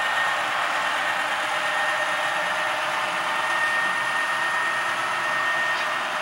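HO-scale model diesel train running steadily: a constant engine-like drone with a thin high whine running through it, and no deep bass.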